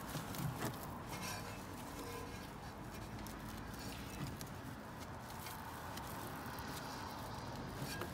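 Faint handling noise: gloved hands shifting a Tesla Model S rear brake caliper, with a few light clicks over a steady background hum.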